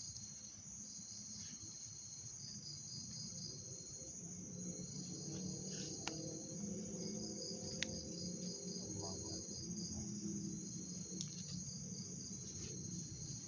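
Crickets trilling steadily at night, their chirping pulsing in quick beads, over a low rumble, with two sharp clicks about halfway through.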